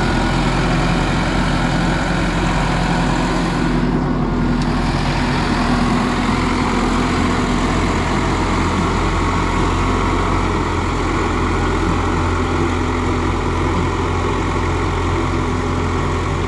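Farm tractor's diesel engine running steadily under load, a constant low drone.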